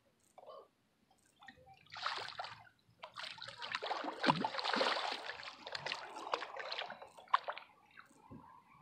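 Water splashing as a hooked blue catfish thrashes at the surface beside a kayak: a short splash about two seconds in, then a longer run of splashing that stops about seven and a half seconds in.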